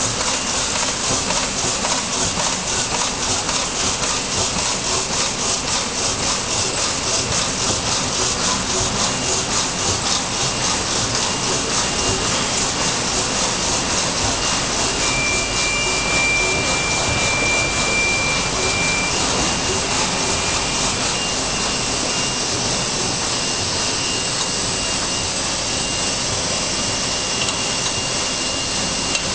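1988 Lemo Intermat 1350 bag-making machine running: a fast, even clatter of its repeating weld-and-cut cycle over a steady rushing noise. A faint high whine joins about a third of the way in, with a brighter high tone for a few seconds around the middle.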